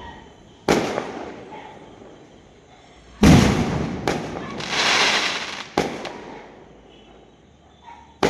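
Fireworks going off: a series of sharp bangs that ring out and die away, the loudest about three seconds in, with a hissing burst that swells and fades around five seconds in.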